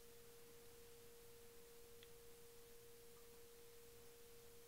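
Near silence: faint room tone with a steady, unchanging hum at one fairly low pitch.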